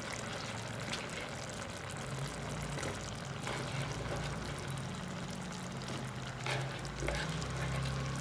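Sliced button mushrooms being tipped into a pan of boiling masala gravy: soft drops and ticks as the pieces land, several times, over the gravy's bubbling. A steady low hum comes in about two seconds in.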